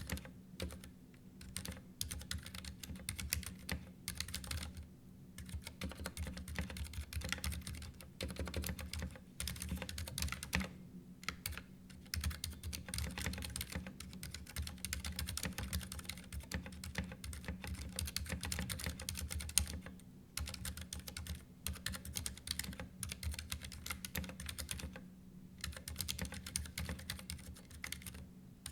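Typing on a Ducky One 2 Mini 60% mechanical keyboard: a fast, continuous clatter of keystrokes, broken by a few short pauses.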